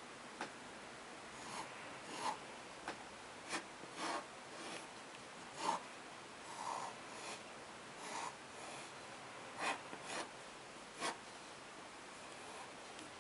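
Fine-tip pen scratching across paper in a dozen or more short, quick sketching strokes, irregularly spaced, over a faint steady hiss.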